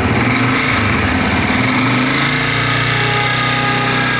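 Honda CG125's air-cooled single-cylinder four-stroke engine running, settling to a steady idle about halfway through. It carries the noise from the cam side that the mechanic puts down to a worn cam gear with damaged teeth and the cam follower.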